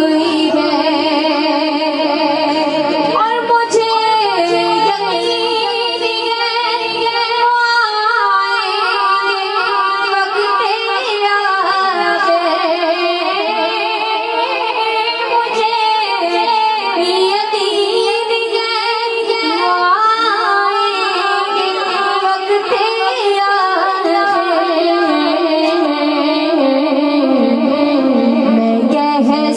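A female voice singing an Urdu naat, the melody held and gliding between notes without a break.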